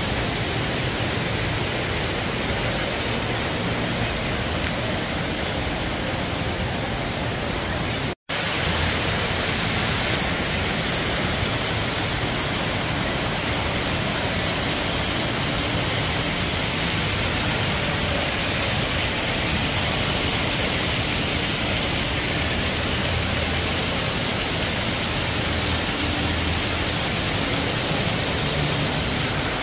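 Steady rush of falling water from a fountain's jets splashing into its pool, cutting out for an instant about eight seconds in.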